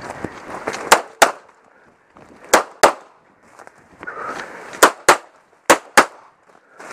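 Eight gunshots fired as four quick double taps, the two shots of each pair about a third of a second apart, with a pause of a second or more between pairs.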